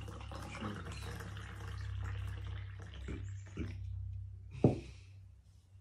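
Carbonated soda poured from cans into glasses of juice, running and fizzing, with a few small clinks. Near the end comes a single sharp knock, the loudest sound.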